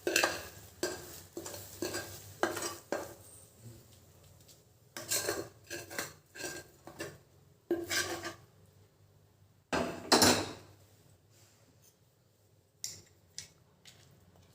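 A spoon scraping and knocking against a pan and plate as the thick, cooked coconut burfi mixture is turned out and spread. It comes as irregular clinks and scrapes in short clusters, the loudest knocks about ten seconds in.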